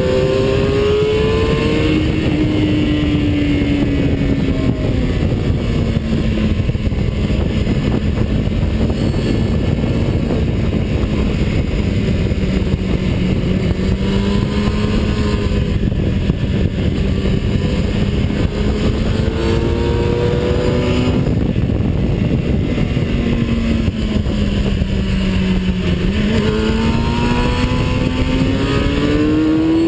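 Engine of a vehicle lapping a race track, heard from an onboard camera, with heavy wind noise. The engine note drops about two seconds in, holds fairly steady for a long stretch, dips again later and climbs near the end.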